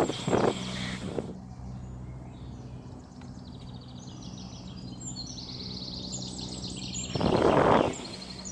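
A small songbird singing repeated short chirping phrases, with two brief rushes of air noise, one right at the start and a longer one about seven seconds in.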